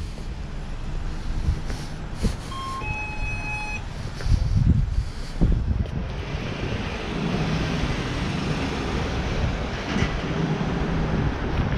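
Road traffic on a city street: vehicles passing, with the tyre and engine noise swelling from about six seconds in. A brief high tone sounds about three seconds in.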